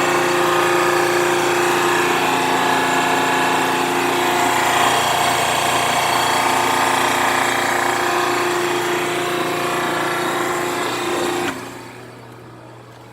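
Wall-mount electric pressure washer running: a steady motor-and-pump whine over the hiss of the high-pressure spray. It cuts off suddenly about eleven and a half seconds in, leaving a faint low hum.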